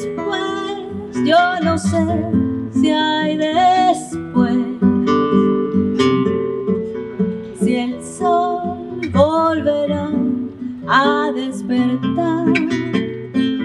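A woman singing with a classical guitar accompanying her in plucked chords and notes, her sung notes wavering with vibrato.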